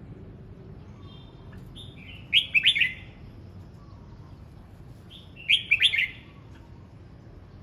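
Red-whiskered bulbul singing: two short, loud phrases of quick notes, the first about two and a half seconds in and the second about three seconds later, with softer notes between.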